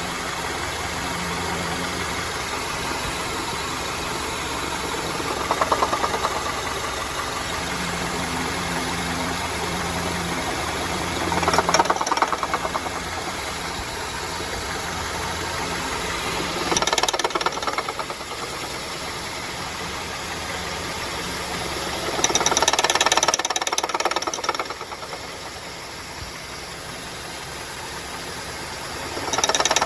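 2009 Honda Civic engine running, with brief louder swells about every five or six seconds. It is making a bad noise that has carried on after a new water pump and belt tensioner were fitted.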